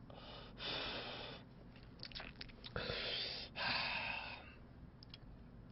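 A man smoking a cigarette: several breathy drags and exhales, with a few small mouth clicks between them.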